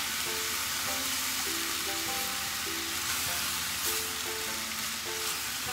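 Sliced goya (bitter melon) sizzling steadily in sesame oil and soy sauce in a frying pan over a low gas flame. Soft background music with a simple stepped melody plays over it.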